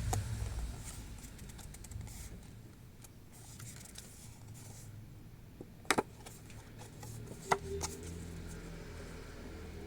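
Handling noise from unboxing trading cards and their packaging, with a few sharp taps or clicks: two close together about six seconds in and another about a second and a half later, over a low steady background rumble.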